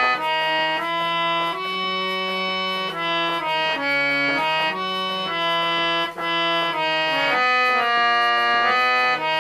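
Harmonium playing an instrumental melody, reedy held notes stepping from one pitch to the next about every half second to second.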